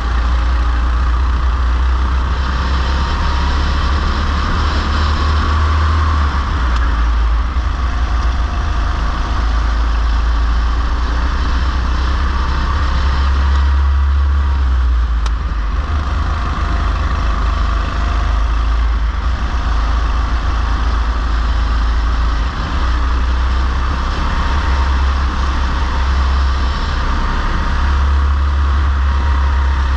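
Go-kart engine running at racing speed, picked up by an onboard camera, with heavy wind rumble on the microphone. The engine's pitch shifts a little now and then.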